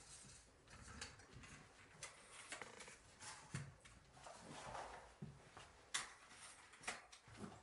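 Faint clicks, knocks and rustling of a tripod and field kit being handled, with a sharper click about six seconds in.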